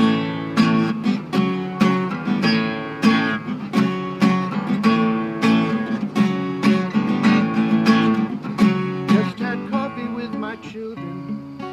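Music: an instrumental break in a song, a guitar strumming chords in a steady rhythm, thinning out and getting quieter from about three-quarters of the way in.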